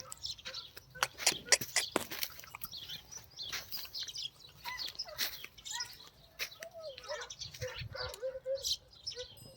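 Birds chirping, with scattered sharp clicks and knocks, and a wavering call of several seconds in the second half.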